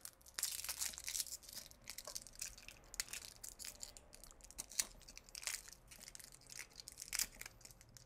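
Inner wrapping of a submersible pump drop cable being peeled and torn away by hand: faint, irregular crinkling and tearing rustles with small ticks.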